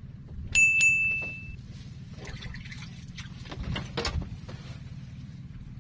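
A sharp, high-pitched tone with a couple of clicks lasts about a second near the start, followed by scattered splashing and water-handling sounds, over a steady low hum.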